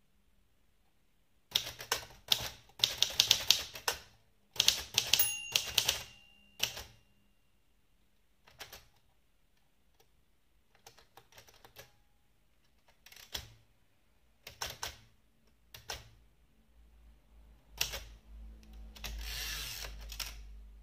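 Adler abc 5000 typewriter being typed on: quick runs of sharp key strikes, then slower, scattered strikes. A short ringing tone sounds about midway, and a longer rasping sound comes near the end.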